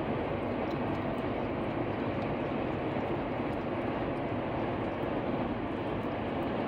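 Steady road noise inside a moving car's cabin, an even rumble and hiss that holds at one level throughout.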